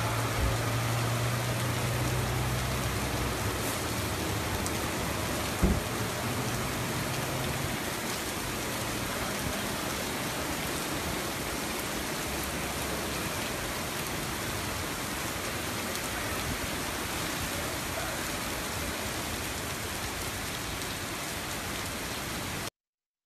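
Heavy rain pouring steadily onto flooded pavement, a dense even hiss. A low vehicle engine hum runs under it for the first eight seconds, and a single sharp thump stands out about six seconds in. The sound cuts off suddenly near the end.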